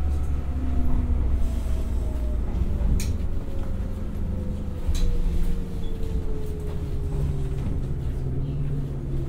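Interior running sound of a JR East 107 series electric train slowing down: the whine of its MT54 traction motors and gearing falls steadily in pitch over a low rolling rumble. Two sharp clicks come about two seconds apart.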